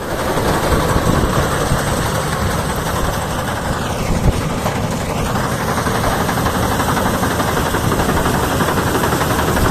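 Combine harvester running steadily with a heavy, dense rumble. Its tone sweeps down and back up briefly about four seconds in.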